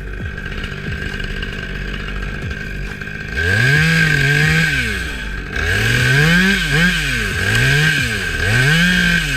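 Chainsaw running steadily, then from about three seconds in revved up and down again and again, its pitch rising and falling about five times.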